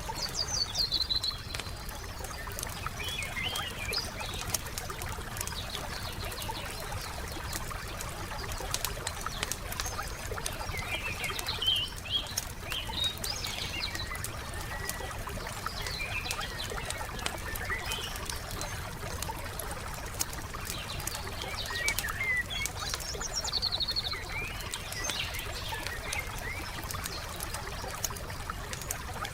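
Wood fire crackling with many small pops, while songbirds chirp and twitter at intervals, over a low steady rumble.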